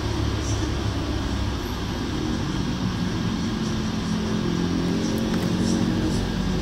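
Steady low rumble of road traffic, with an engine's hum growing stronger in the second half, as of a vehicle passing.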